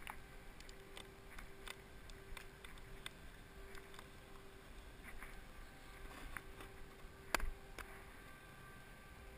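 Faint, irregular clicking of snowboard binding ratchet straps being worked and tightened by hand, with one sharper knock about seven seconds in.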